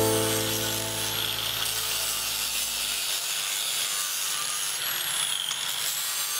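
Angle grinder with a sanding disc grinding rust off a steel cleaver blade: a steady grinding hiss with a faint high motor whine that dips briefly near the end. Background music plays over it, with a chord that fades out about halfway through.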